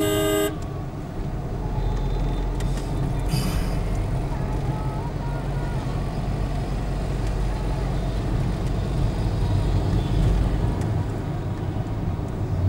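Steady engine and road rumble heard from inside a car driving in traffic, with a short, loud horn blast of about half a second right at the start and a fainter honk about three seconds in.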